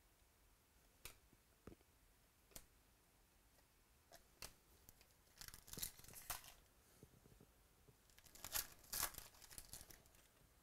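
Quiet handling of trading cards: a few light ticks of cards being flipped, then two crinkly tearing spells, the second the loudest, as a foil card-pack wrapper is torn open.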